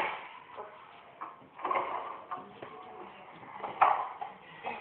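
Knocks and clatter from an open refrigerator being handled: the door, shelves and containers being moved in short, irregular bursts.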